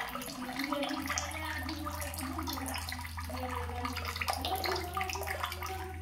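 Water running and splashing, a steady dense trickle, the water track of a nature soundscape. A low steady hum comes in about a second in.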